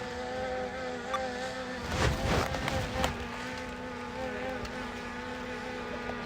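Skydio 2 drone's propellers humming steadily, a buzzing tone that wavers slightly in pitch. A brief louder rush of noise comes about two seconds in.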